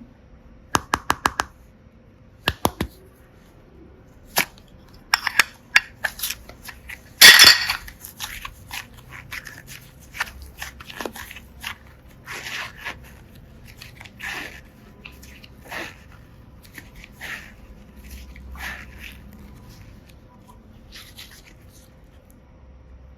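Slime being handled by hand with small plastic charms in it, making sharp clicks and crackles: a quick run of four clicks about a second in, and the loudest crackling burst about seven seconds in, followed by softer, scattered crackles.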